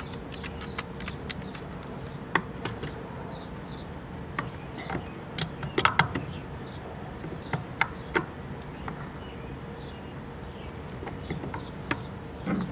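Channel-lock pliers clicking and clinking against a plastic bulkhead nut as it is tightened a quarter turn past hand tight, in scattered short clicks, the loudest about six seconds in. A steady low hum runs underneath.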